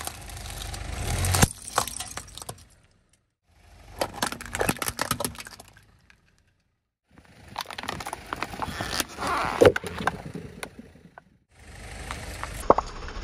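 Car tyre rolling over and crushing objects on asphalt: crunching with many sharp cracks and snaps as they break apart. The sound comes in four separate bursts of two to four seconds each, with short silences between.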